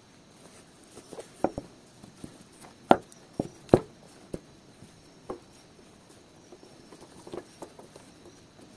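Irregular light clicks and knocks of small parts and tools being handled on a workbench, about a dozen in all, the sharpest two about three and nearly four seconds in.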